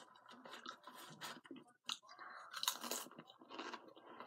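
Close-up chewing of crunchy chips: irregular crisp crackles, loudest in a cluster a little past halfway.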